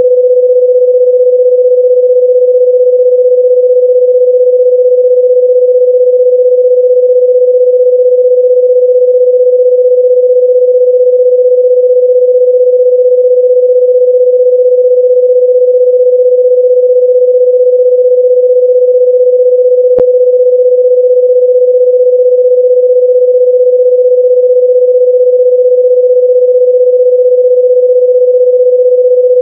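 A loud, unbroken electronic pure tone held at one steady mid pitch, with a faint click about twenty seconds in.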